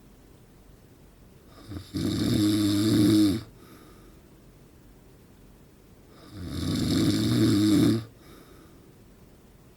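A man in his forties snoring in his sleep: two loud, low-pitched snores, each lasting a second and a half or so and about four and a half seconds apart, with quiet between them.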